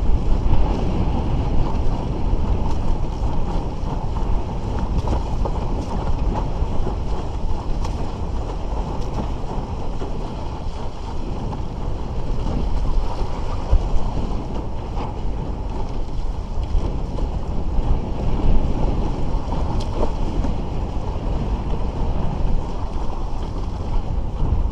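Water rushing and slapping against a Bic Bamba raceboard's hull as it sails through light chop, with occasional sharper slaps, and wind buffeting the microphone.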